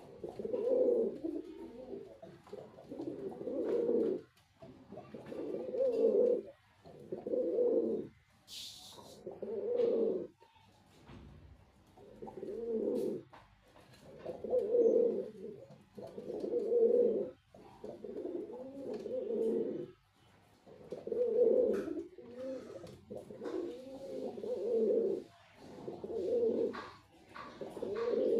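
Male pigeon cooing over and over, a low rolling coo about every two seconds. There is a brief hiss about eight seconds in.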